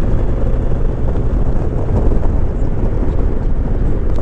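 Honda VTX 1300 V-twin motorcycle engine running steadily at road speed, with wind rushing over the rider's microphone.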